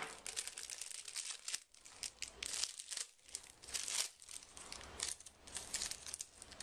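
Plastic packaging crinkling in quick, irregular crackles as it is handled.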